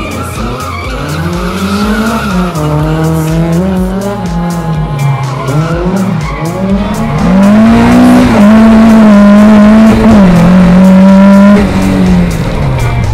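Lada 2107 rally car's four-cylinder engine revving hard, its note climbing and dropping again and again with throttle and gear changes, while the tyres skid on the asphalt as the car slides around tyre markers. The engine is loudest for a few seconds past the middle, then drops back near the end.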